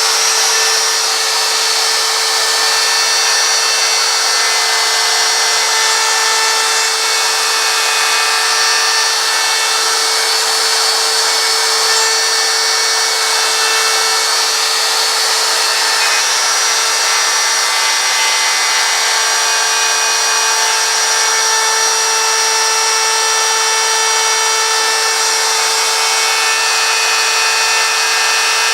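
Handheld wood router running steadily at speed, its custom profile bit carving into a wooden sign board.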